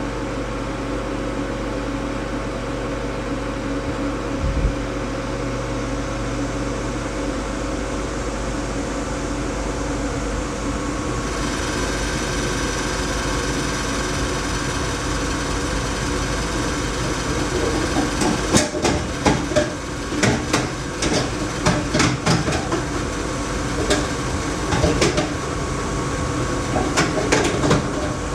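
Laars Mini-Therm II gas boiler running with a steady hum. About a third of the way in a hiss joins in, and from about two-thirds in an irregular, rapid rattling sets in.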